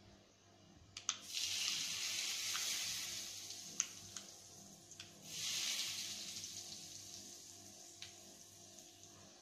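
A hot dosa tawa sizzling in two loud hissing surges, one about a second in and one about five seconds in, each fading away slowly, with a few light utensil clicks in between.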